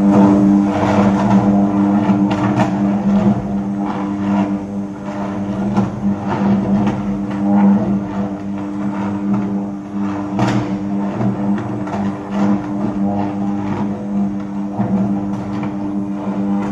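Ladle refining furnace's electric arc: a loud, steady buzzing hum with irregular crackling as the graphite electrodes arc on the molten steel.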